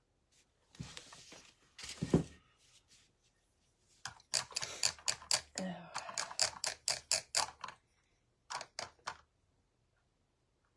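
A run of quick, irregular clicks and taps in a few short bursts, the longest lasting from about four to nearly eight seconds in.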